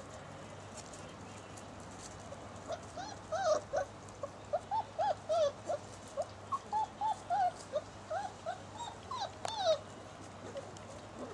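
Six-week-old basset hound puppy whimpering in a long run of short yips that each rise and fall in pitch, about three a second. They start a couple of seconds in and stop shortly before the end.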